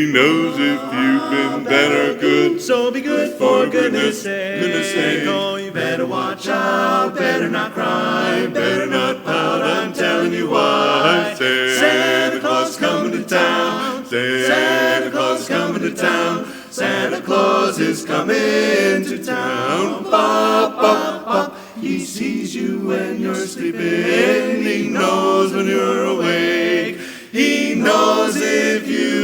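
Barbershop singers performing a cappella in close four-part harmony, with no instruments.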